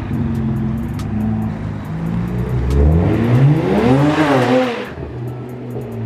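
BMW N54 twin-turbo 3.0-litre straight-six in a 335i accelerating hard past on a test pull, its engine note climbing steeply from about two and a half seconds in, then dropping and fading as the car goes by, about five seconds in. The car has newly fitted Index 12 fuel injectors and is running fine.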